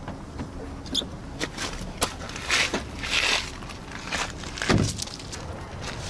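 Car door and footsteps on gravel: a few sharp clicks, short crunching steps, and one dull thump a little before the end.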